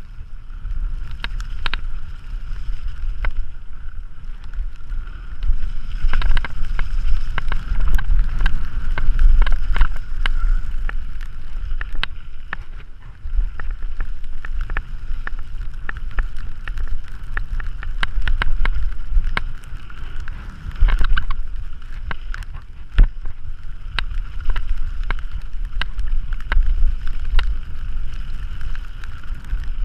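Mountain bike descending a rough dirt trail, recorded from a camera on the rider: heavy wind buffeting on the microphone over tyre noise on dirt, with frequent sharp clicks and rattles from the bike jolting over bumps and rocks.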